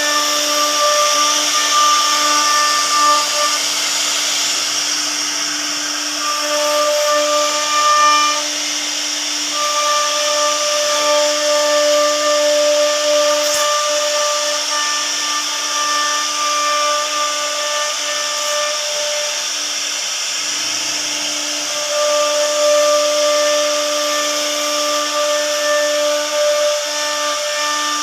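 CNC router cutting into a wooden door panel: the spindle runs with a steady whine, and a higher, stepped tone keeps cutting in and dropping out every few seconds as the machine moves and loads up.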